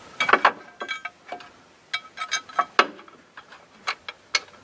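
Irregular metal clicks and clinks as steel bolts and a steel brace are fitted by hand against a truck frame. A scatter of sharp taps, some with a short ring, in two clusters with a single sharper knock about three seconds in.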